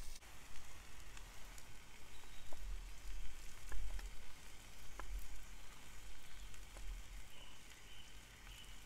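Kitchen knife slicing through cooked venison tenderloin on a wooden chopping board, with a few sharp clicks as the blade meets the board.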